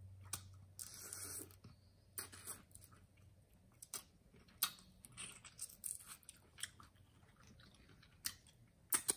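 Close-miked mouth sounds of eating a saucy seafood boil by hand: chewing with wet lip smacks and irregular sharp clicks, the longest smacking sounds about a second and two seconds in.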